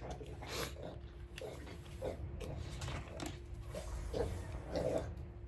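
A pet licking its paw and smacking its lips after eating roast beef: a run of short, irregular wet smacks and clicks.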